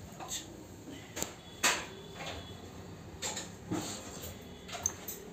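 A handful of short, separate light knocks and clicks, small objects being handled and set down, spread over a few seconds in a quiet room. The sharpest comes in the second second.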